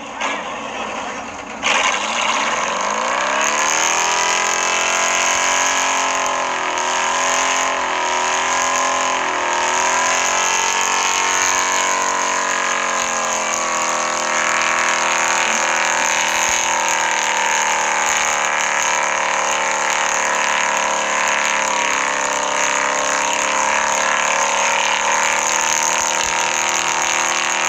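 Truck engine revving up about two seconds in and then held at high revs through a burnout, its pitch wavering up and down, with a steady hiss over it.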